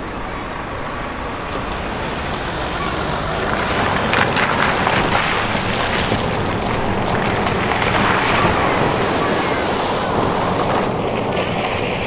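A Range Rover driving through a shallow ford, its tyres swishing and splashing through the water. The rushing sound builds from about three seconds in, is loudest through the middle, and eases off near the end.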